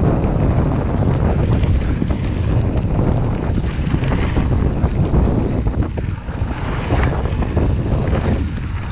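Wind buffeting the microphone on a mountain bike riding a dirt trail at speed, over a steady low tyre rumble, with frequent sharp clicks and rattles from the bike.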